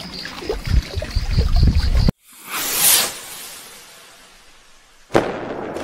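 Channel logo-intro sound effects: a whoosh that swells and fades, then a sudden hit with a decaying noisy tail near the end. Before it, about two seconds of outdoor field sound with low rumbles and thumps and a fast high pulsing tone, cut off abruptly.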